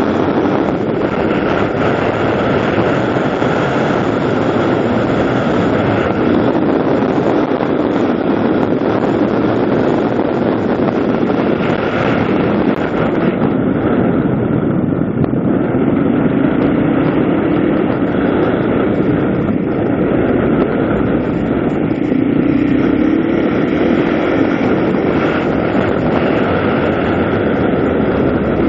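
Vehicle engine running steadily while riding along a road, with wind noise on the helmet-mounted microphone; the engine pitch rises briefly a couple of times in the second half.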